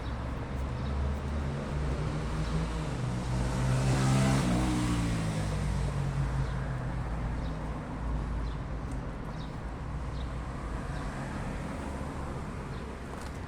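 A car passing by. Its engine note rises as it approaches, is loudest about four seconds in, then drops in pitch and fades away over a steady low traffic rumble.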